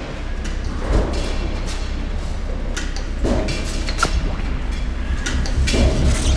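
Industrial press machine working: a heavy low rumble with irregular metallic clanks and knocks, the loudest about a second in and again near the end.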